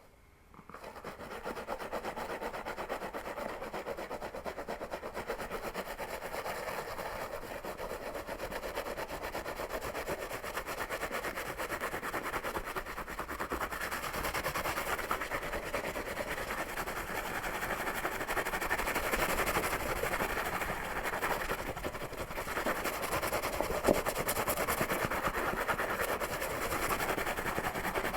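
Fingernails scratching and rubbing rapidly through hair on a scalp in a dense, continuous rasp that starts about a second in, with a single sharp click near the end.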